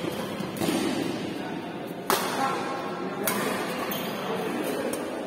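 Badminton rackets striking the shuttlecock during a doubles rally: three sharp hits about a second apart, the loudest a clean crack near the middle.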